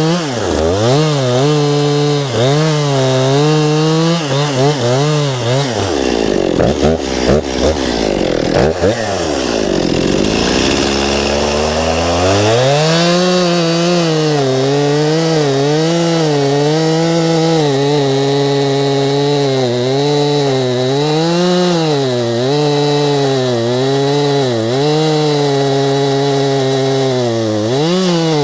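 Gas chainsaw cutting through a pine trunk, its engine pitch rising and falling as the chain bites and frees. About a third of the way in it sags almost to idle with a few sharp cracks, then revs back up and keeps cutting.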